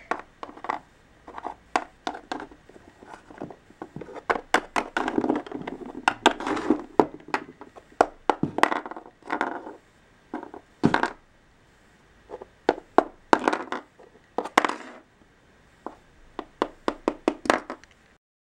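Hands moving small plastic Littlest Pet Shop figures on a tabletop: a run of light taps and clicks with rubbing and scraping in between, and a quick cluster of taps near the end.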